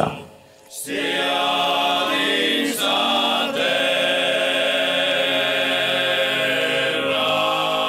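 Sardinian polyphonic singing: a group of voices holding long sustained chords, starting about a second in and shifting chord once partway through.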